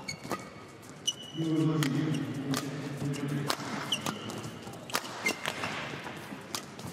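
Badminton rally: rackets striking the shuttlecock in sharp smacks about once a second, and court shoes squeaking on the court mat. About a second in, a low voice holds a note for about two seconds.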